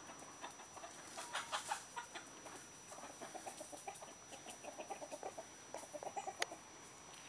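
Chickens clucking: a few louder clucks in the first couple of seconds, then a quick run of short clucks, with a sharp click near the end.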